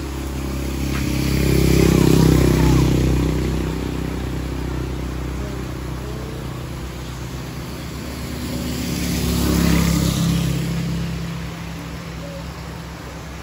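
Two motor vehicles passing on the rain-wet road, engine hum with tyres hissing on the wet asphalt, the first loudest about two seconds in and the second about ten seconds in. Steady rain underneath.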